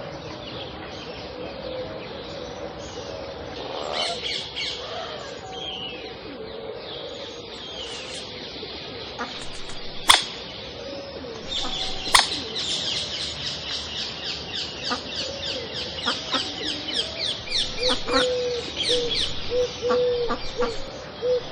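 Pond ambience with several birds calling over a steady background hiss: a long fast run of high, repeated chirping notes through the second half, and short low calls repeated about twice a second near the end. Two sharp clicks stand out as the loudest sounds, about ten and twelve seconds in.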